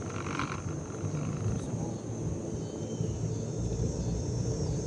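Low steady rumble of a vehicle moving slowly, with a steady high chirring of insects over it.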